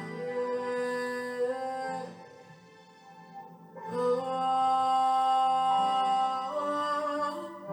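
Slow worship music of long held notes that shift pitch in steps, dropping quieter about two seconds in and swelling back about four seconds in.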